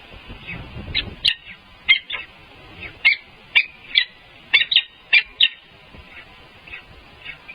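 A bird calling in a rapid series of short, sharp, high-pitched chirps, densest and loudest in the middle few seconds, with fainter calls before and after. A low rumble sits under the first second.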